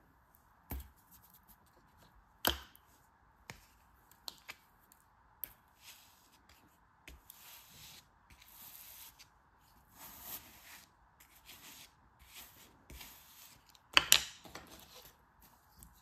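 Kinetic sand cubes crumbled and scraped by hand: a few crisp crunchy clicks in the first few seconds, then soft gritty rustling, and a louder crunch a couple of seconds before the end.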